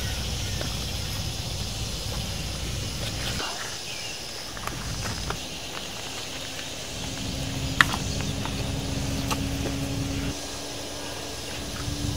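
Outdoor ambience with wind rumbling on the microphone, a faint steady hum in the second half, and a few sharp clicks, the loudest about two-thirds of the way through.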